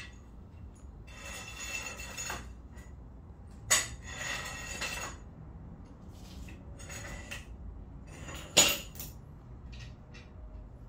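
Geode and rock fragments being handled against hard tools and surfaces: stony clinking, rattling and scraping, with two sharp clacks about four and eight and a half seconds in.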